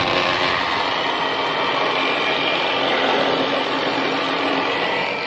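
Handheld electric air blower blasting dust out of an air cooler's fan grille: a steady, loud rush of air over the motor's whine that starts suddenly.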